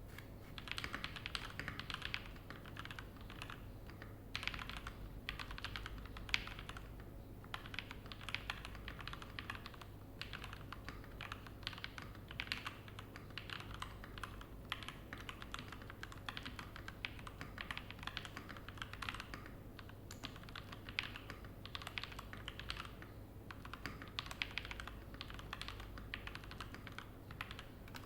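VN66 mechanical keyboard in stock, unmodified form being typed on: quick runs of key clacks broken by short pauses.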